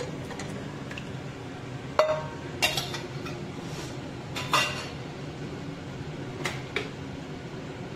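Steel spoon clinking and knocking against a glass bowl and a nonstick pan as raw eggs are tipped into the pan: a handful of sharp clinks, the loudest about two seconds in. A steady low hum runs underneath.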